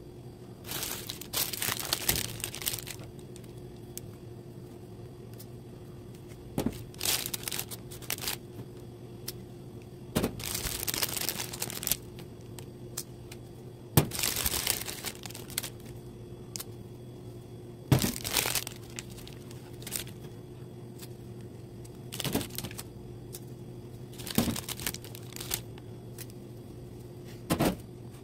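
Paper or plastic crinkling and rustling in short bursts every few seconds as adhesive labels are handled, some bursts starting with a sharp click. A steady low hum runs underneath.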